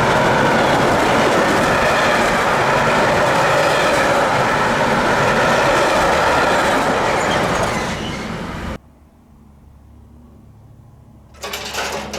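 A train passing close by: steady loud rolling noise of wheels on rail, easing a little before it cuts off abruptly about nine seconds in. A low hum follows, then a short, louder burst of sound near the end.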